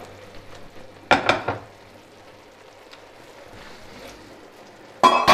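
Sliced cardoncelli (king oyster) mushrooms sizzling in oil in a frying pan, with loud clatters about a second in and again near the end.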